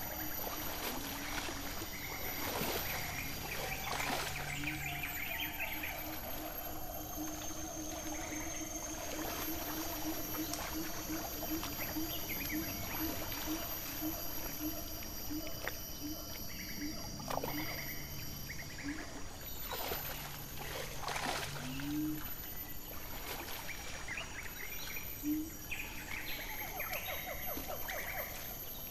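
Sumatran rhino sloshing and splashing in a muddy wallow, with a few sudden splashes. Behind it runs a steady high insect drone and a low call repeated a few times a second through most of the stretch.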